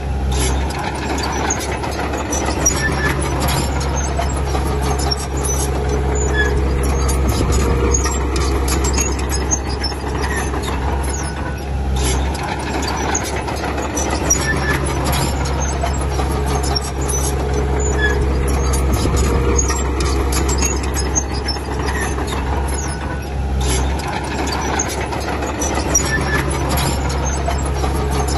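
Heavy diesel earthmoving machinery working: a steady low engine hum with many small metallic clanks. A deeper engine tone comes in and drops out again about every twelve seconds.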